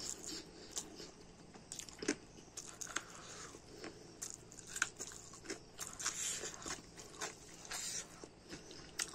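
A person eating by hand, chewing and biting with a crunch now and then, with irregular short smacks and clicks of the mouth.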